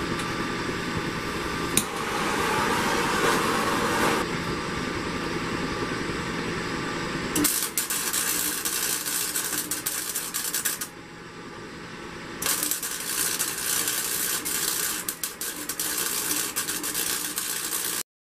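Chicago Electric 125 wire-feed welder arc crackling and sputtering as a bead is laid on steel, starting about seven seconds in. It stops briefly about eleven seconds in and picks up again a second and a half later.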